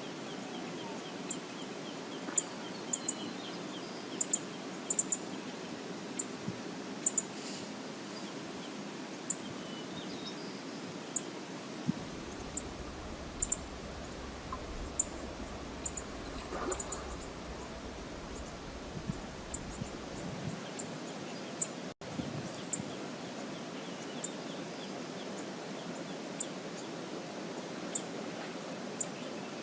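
Steady rushing of river water, with short, sharp, high chirps every second or two and a low rumble for several seconds in the middle.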